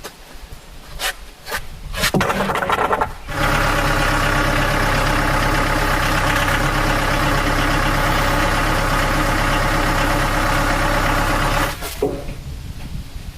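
An engine starts after a few clicks and knocks, runs steadily at one speed for about eight seconds, then cuts off suddenly.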